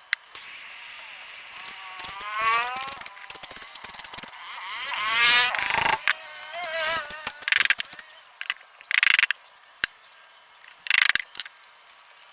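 Metal parts of an air compressor pump being fitted together and tightened by hand: scattered clicks and clinks, short scraping bursts, and two squeaks that rise in pitch, the first about two seconds in and the second around five seconds.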